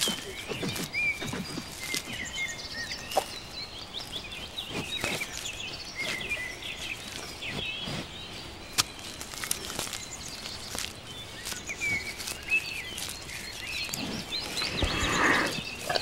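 Natural outdoor ambience of small birds chirping in many short calls, with scattered clicks and knocks. Near the end, a louder, lower animal call swells up.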